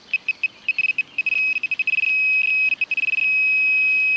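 Handheld metal-detecting pinpointer probe sounding in a dug hole: a high beep that chatters in quick irregular pulses and then holds as a solid tone from about three seconds in, the sign of the probe closing on a buried metal target.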